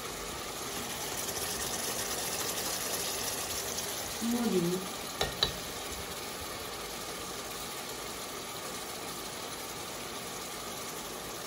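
Pot of onion curry base simmering and sizzling on the hob: a steady hiss. A short voice comes in about four seconds in, followed by two light clicks.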